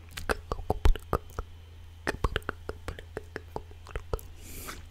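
Quick, irregular clicks and pops right at the microphone, one loud pop about a second in, then a short breathy whisper near the end.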